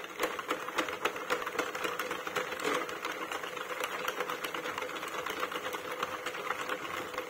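Hand-cranked circular knitting machine running: a steady, rapid clatter of the plastic needles rising and falling as the crank turns the needle ring, knitting plain rounds.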